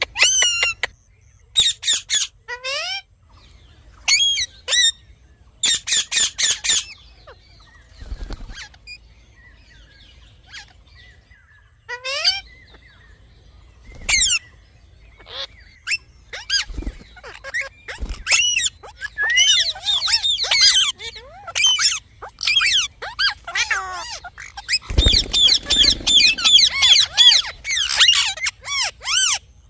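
Parrots screeching and squawking in short bursts of fast-warbling, high-pitched calls, with a quieter spell about a third of the way in. From about two-thirds of the way in, several birds call over one another almost without a break. A few low thuds come in between.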